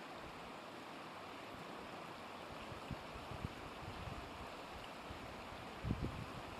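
Steady rushing of river water, with a few soft low thumps about three seconds in and a double thump near the end.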